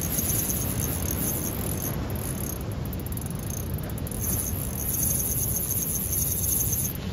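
Surf on a rocky shore, a steady low rush of noise, with runs of fast, high-pitched ticking over it near the start and again in the second half.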